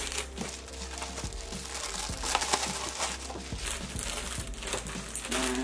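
Clear plastic bag crinkling and rustling with irregular crackles as a boxed scarf is handled and slid out of it.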